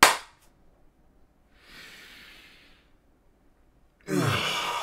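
A man's breath, then about four seconds in a long, loud sigh that falls in pitch as the air goes out. A sharp sound right at the start is the loudest moment.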